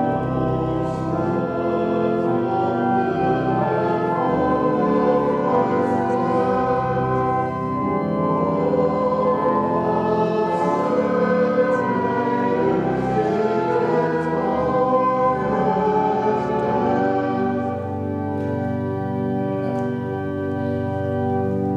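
Church organ accompanying a small congregation singing a hymn, held chords changing slowly.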